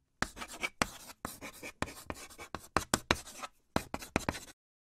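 Chalk scribbling on a blackboard: a quick, irregular run of short scratching strokes that stops abruptly about half a second before the end.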